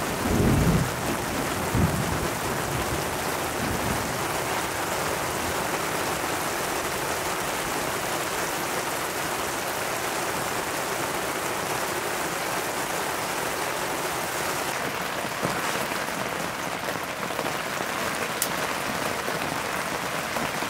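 Heavy rain pouring steadily, heard from inside a hunting ground blind, with low thunder rumbling in the first couple of seconds.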